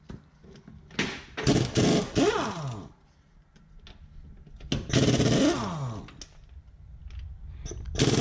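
Pneumatic impact wrench undoing wheel bolts: three bursts of rattling hammering, the last starting near the end, each ending with the motor's pitch falling as it spins down.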